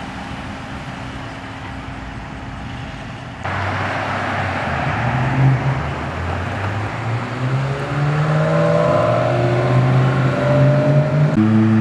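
Car engines and exhaust as cars pull away. The sound steps up suddenly about three seconds in, and then one engine's pitch climbs steadily as it accelerates, with a quick shift near the end.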